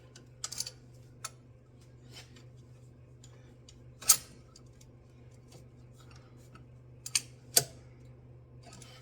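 Vise-grip locking pliers clicking and clinking against metal as they are worked into place, with scattered light clicks, one louder clink about four seconds in and two more near the end. A steady low hum runs underneath.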